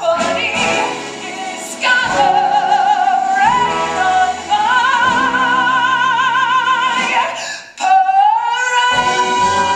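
A woman belting long held notes with wide vibrato over musical accompaniment. After a short break about eight seconds in, she takes a new high note and holds it steady.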